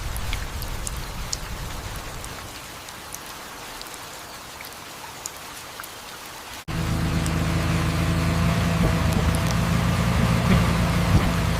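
Rain falling, with scattered drops ticking. About two-thirds of the way in it cuts off abruptly to a steady, louder engine drone of heavy construction machinery.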